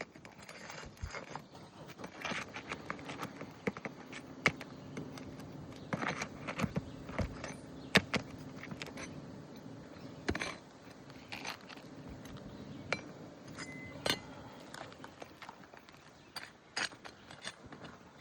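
Hand tools working asphalt roof shingles loose: an irregular run of sharp clicks, knocks and scrapes, with a couple of louder knocks.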